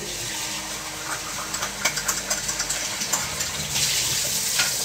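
Water running from a tap, with light clicks and knocks of things being handled; the flow cuts off suddenly near the end.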